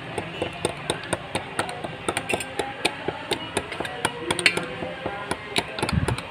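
A utensil clinking against a glass in quick, irregular taps while stirring a spiced drink, with background music under it.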